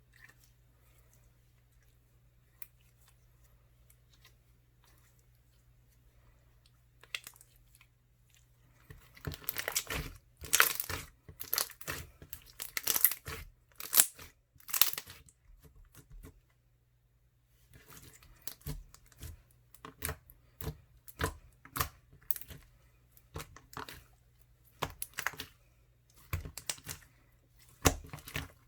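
Crunchy slime made from Doctor's Crunch clear glue being squeezed and played with by hand, giving crackling crunches and air-bubble pops. Quiet with faint ticks for the first several seconds, then repeated crackly bursts with a short pause midway.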